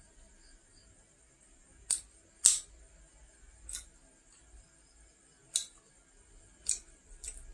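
Eating sounds from a fried Khmer pastry (nom krouch): about six short, crisp clicks from chewing and pulling pieces apart, spaced irregularly, the second one the loudest.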